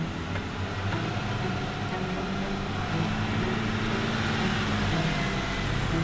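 Jeep engine running at low revs while crawling a steep slickrock climb, its note rising slightly and easing off again midway.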